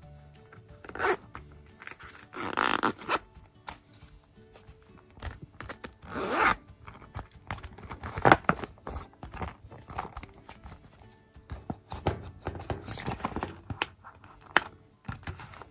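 Zippers on small toiletry bags pulled several times as toiletries are packed, with clicks and rustles of the items being handled, over quiet background music.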